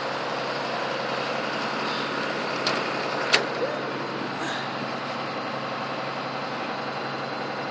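Cat 315CL excavator's diesel engine idling steadily, with two short knocks about three seconds in.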